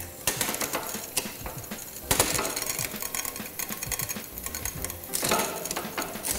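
Bicycle drivetrain turned over by hand in a repair stand: the chain runs over the chainrings and rear sprockets with a continuous rattling click, and louder bursts of chain clatter come just after the start, about two seconds in and again about five seconds in as it shifts across the chainrings. This is a check of the front derailleur's high-limit adjustment.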